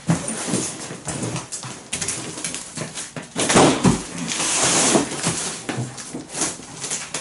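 Clear plastic stretch wrap being pulled off its roll and wound tight around a cardboard wardrobe box, the film stretching and unwinding, while the box rubs and shifts. The loudest, longest pull comes about halfway through.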